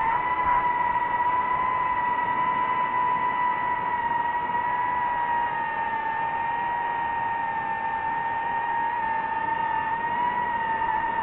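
DJI FPV drone's motors and propellers whining steadily in flight, the pitch dipping slightly in the middle and wavering near the end as the throttle changes.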